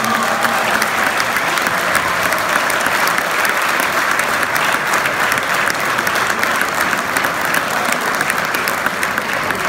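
Concert audience applauding steadily, the clapping starting just as the orchestra and singer finish a song.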